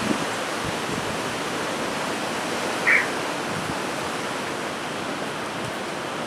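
Steady hiss of heavy hurricane rain and wind. About three seconds in, one short, high chirp cuts through.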